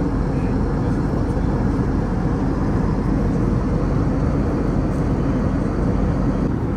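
Steady cabin rumble inside an Airbus A321neo airliner on descent: even engine and airflow noise with no distinct events.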